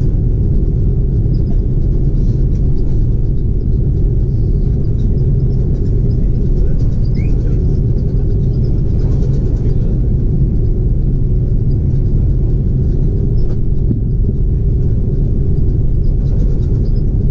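Cabin noise inside an Airbus A330 during taxi: a steady low rumble from its Rolls-Royce Trent 700 engines at taxi power and the rolling airframe, with a steady hum over it.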